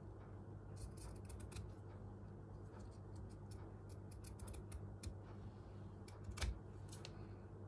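Scissors snipping fabric: quiet, scattered crisp clicks, a cluster about a second in and a louder snip about six and a half seconds in.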